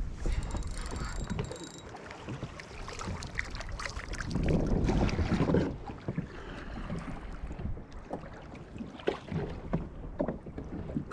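Open-ocean water sloshing against a plastic fishing kayak's hull, with wind buffeting the microphone. A louder rush comes about four and a half seconds in and lasts about a second, and a few small knocks and ticks follow near the end.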